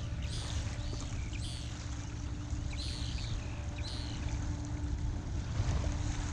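Small waves lapping at the edge of a shell beach over a low rumble, while a bird gives a run of short rising-and-falling chirps, about two a second, that stop about four seconds in. A faint steady hum runs beneath.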